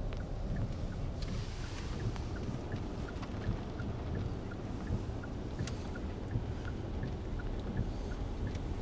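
Low steady rumble of a car driving slowly, heard from inside the cabin, with faint scattered ticks.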